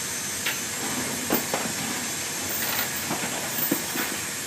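Steady hiss of air in a C-17's cargo hold, broken by several short metallic clinks and knocks from tie-down chains and gear.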